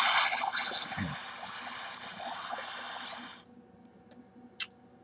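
Electronic sound effect from the Kid Connection Shark Exploration Playset toy boat: a water-like rushing noise that fades out about three and a half seconds in. A small click follows near the end.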